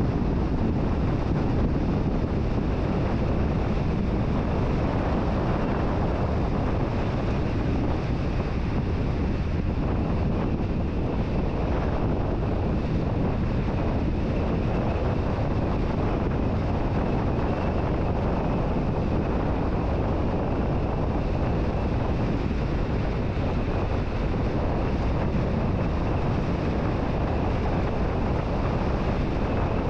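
Steady wind and road noise of a car driving, with wind rumbling on the microphone; the noise stays even throughout.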